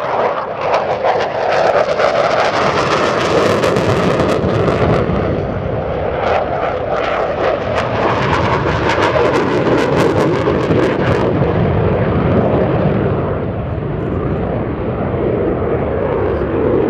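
Saab JAS 39 Gripen C fighter jet's engine running loud as the jet passes overhead, with a harsh crackle through the first ten seconds or so that smooths out and eases a little after about eleven seconds.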